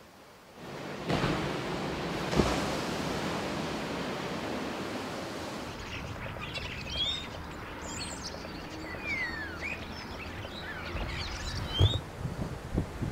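Steady outdoor rushing noise, like surf and wind, starting about a second in. From about halfway, a flock of small birds perched on power lines chirps over it, with many short, quick, rising and falling calls. Near the end come a few low thumps.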